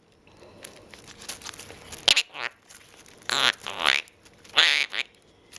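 Quaker parrot giving a few short, high, wavering calls, with a sharp click about two seconds in.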